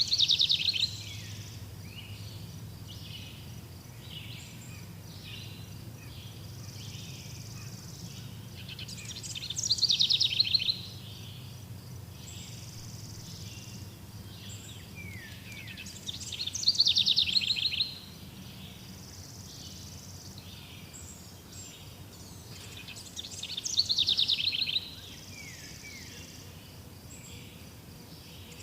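Forest birdsong: one bird repeats a loud song phrase four times, each a fast trill falling in pitch and lasting a second or two. Softer chirps from other birds fill the gaps, over a steady low hum.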